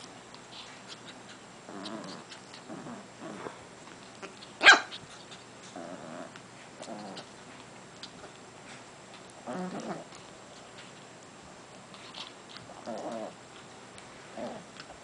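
Japanese Chin puppy and older Japanese Chin growling in short grumbles during mouth-wrestling play, with one sharp, loud sound between four and five seconds in.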